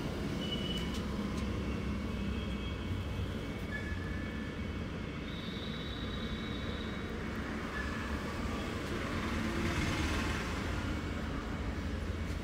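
Steady low rumble of background traffic noise, with a few short, thin high-pitched tones over it.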